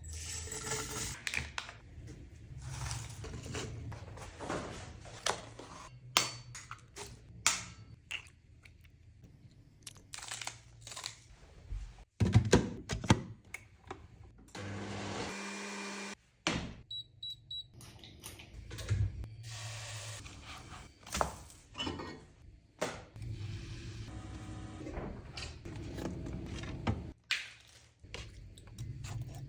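Kitchen preparation sounds: a series of knocks, taps and clatter of utensils and dishes. About fifteen seconds in, a blender runs steadily for under two seconds, blending the oat, egg and spinach batter. Three short electronic beeps follow.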